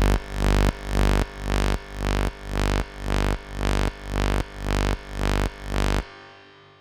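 Electronic background music with a pulsing, wobbling bass beat about twice a second, cutting off suddenly near the end and fading out.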